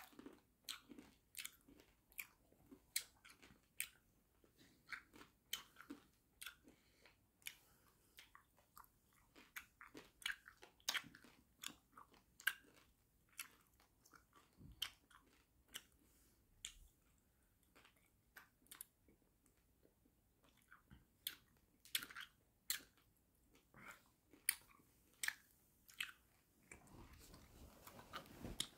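Chewing on jawbreaker hard candy: irregular sharp clicks and wet mouth noises, about one or two a second, as the candy is worked against the teeth.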